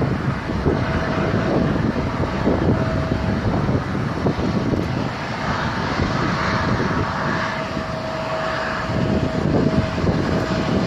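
Jet airliner engines running, with a steady high whine that comes and goes and a swell of engine noise in the middle, over wind buffeting the microphone.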